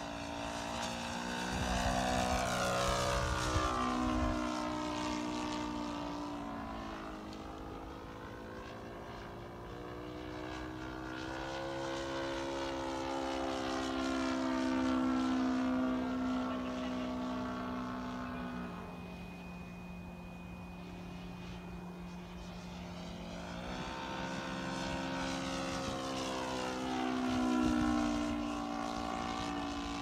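Seagull Extra 300 radio-controlled aerobatic model plane's engine and propeller in flight, the pitch repeatedly swinging up and down as it makes passes and manoeuvres. It is loudest about three seconds in, around the middle, and again near the end.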